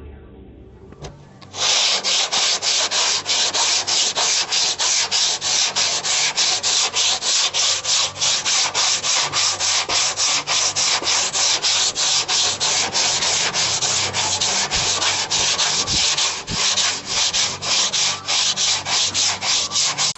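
Sandpaper being rubbed back and forth by hand on a car's bumper valance in steady strokes, about three a second, starting about a second and a half in: hand-sanding during body work.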